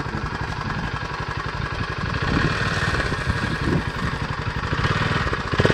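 TVS two-wheeler's engine running with a beer bottle taped into its silencer as a makeshift exhaust, giving a rapid, steady popping exhaust note that gets a little louder about two seconds in.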